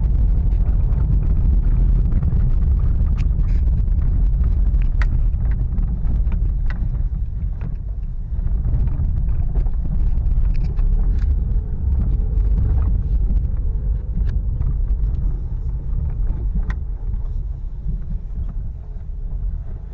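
Car driving: a steady low rumble of engine and road noise, with a few faint ticks.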